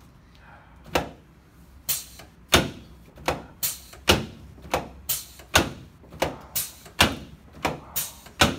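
A run of sharp knocks or thumps at an uneven pace of about two a second, starting about a second in.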